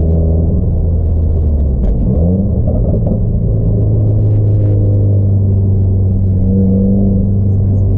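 Subaru WRX turbocharged flat-four boxer engine and exhaust rumbling steadily; its pitch rises a little about two seconds in, then holds.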